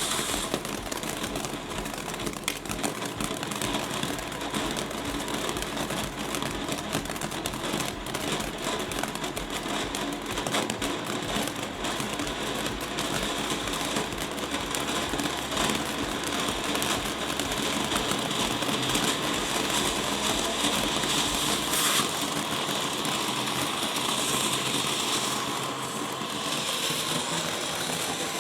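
Ground fountain firework (Phantom Serenity, a no-noise fountain) spraying sparks with a steady hiss, without crackles or bangs.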